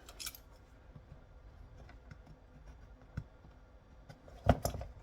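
Hand-stripping an old cable with a knife: faint clicks and scrapes of the blade and insulation, then a short cluster of louder knocks and rustles near the end as the cable is worked open to reach the copper core.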